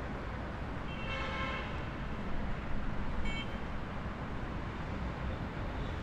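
Street traffic noise with a short car horn toot about a second in, followed a couple of seconds later by a brief high chirp.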